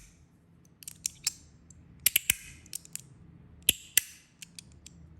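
Zirconium fidget slider and clicker being worked by hand: about ten sharp metallic clicks, several in quick pairs.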